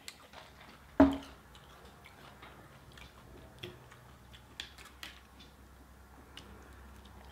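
Quiet eating sounds: soft chewing with scattered small mouth clicks, and one sharp knock or crunch about a second in.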